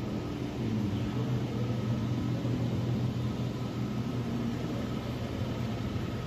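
Steady low hum of a large building's ventilation or air-handling system, with a faint higher steady whine above it.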